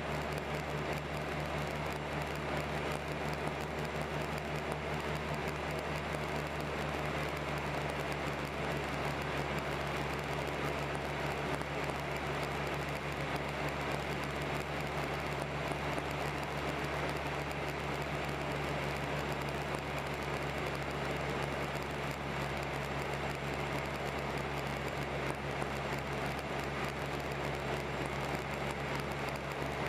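Cabin noise of a Piper PA-23 Geronimo twin in flight: its two piston engines and propellers make a steady, low drone with airflow noise over it, while the plane is on final approach.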